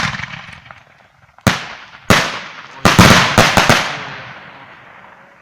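Homemade firework shells going off in a string of sharp bangs. The first is still ringing out as the sound starts, two more come about a second and a half and two seconds in, and then a rapid cluster of about five follows. Each bang trails off in a long echoing decay.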